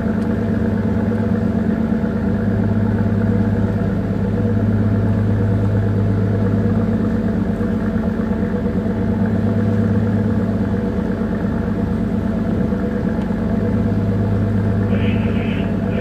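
A small bunker tanker's diesel engine running steadily underway, heard on board as an unbroken low drone.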